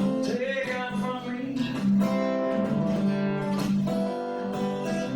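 Acoustic guitar being strummed in a live song, filling the gap between sung lines.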